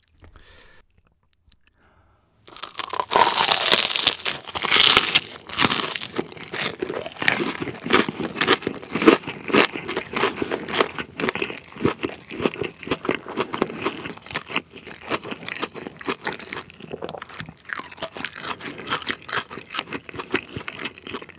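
Close-miked bite into a fried hot dog coated in cubes of potato, starting with loud crunches about two and a half seconds in. Steady crunchy chewing of the fried crust follows.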